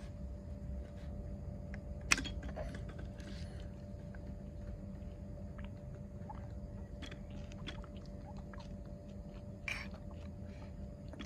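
A toddler sipping from a plastic straw bottle, with small mouth and handling clicks and one sharp click about two seconds in, over a steady low rumble.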